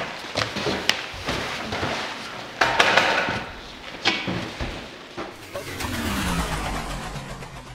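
Cardboard boxes knocking, thudding and scraping as someone climbs through a box fort, with a louder burst of knocks about three seconds in. Near the end a low sound drops in pitch, then everything fades out.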